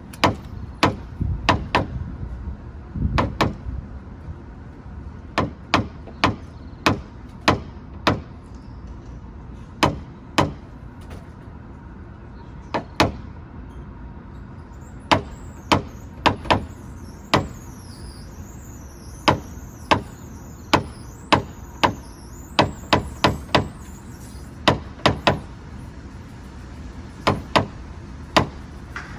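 Sharp taps on car sheet metal, one at a time and in quick runs of two to four, irregularly spaced: paintless dent repair work tapping down high spots and dents in a Toyota Supra's body panels.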